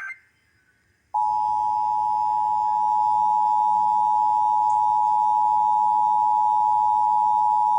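A burst of Emergency Alert System SAME header data cuts off at the start, and after a short gap the EAS attention signal starts about a second in: a loud, steady two-tone alarm (853 and 960 Hz together) held without a break.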